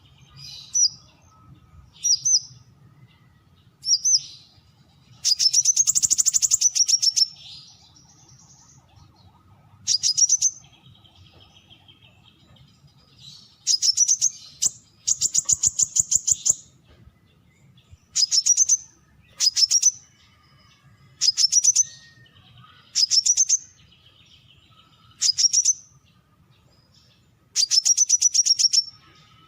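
Brown-throated sunbird singing: high, sharp phrases repeated every few seconds, some short and some drawn out into fast trills that rise and then fall in pitch.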